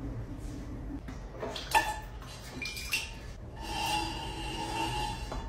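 Electric potter's wheel running with a steady low hum while a clay vase is worked on it: two light clicks of a tool in the first half, then a squeaky rub for about a second as fingers work around the vase's base on the spinning wheel head.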